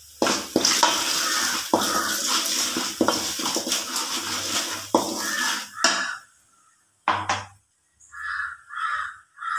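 Ground curry leaf powder tipped from a steel tumbler into hot oil in a kadai, sizzling, with sharp knocks as the tumbler taps against the pan. The sizzle stops about six seconds in, followed by a few short scrapes of a wooden spoon stirring in the pan.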